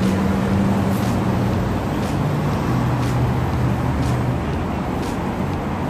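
Street traffic: a motor vehicle's engine running close by over steady road noise, its note dropping in steps.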